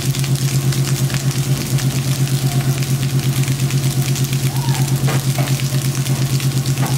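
A steady low engine-like hum, pulsing several times a second, over a faint crackling sizzle of fried rice cooking on high heat in the pan.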